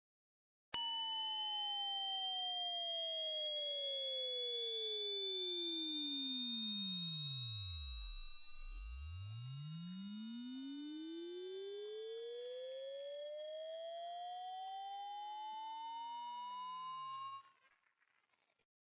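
Loud electronic test tone: a piercing, very high whine that climbs slowly, over a pure tone that slides down to a deep hum and back up again. It starts just under a second in and cuts off near the end.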